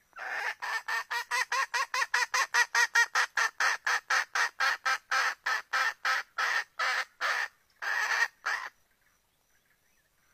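Female junglefowl cackling: a quick, even run of about thirty short clucks, roughly four a second, ending in two longer notes and breaking off about nine seconds in. The uploader presents it as a hen calling a cock to mate, a call used to lure junglefowl cocks.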